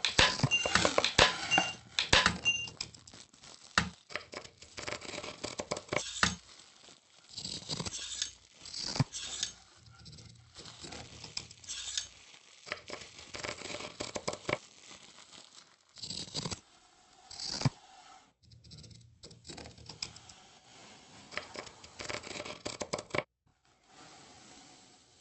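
Irregular scratching, scraping and rustling from painting work, a brush or tool worked across a surface, with many sharp clicks. It is loudest and densest in the first few seconds, where a few short squeaks sound, then comes in sparser bursts, and drops to a faint hiss near the end.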